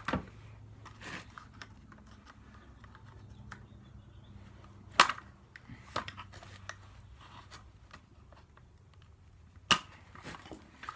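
Sharp clacks and small ticks of a screwdriver and hands working at a BB gun's parts during disassembly, with three louder clacks about five seconds apart.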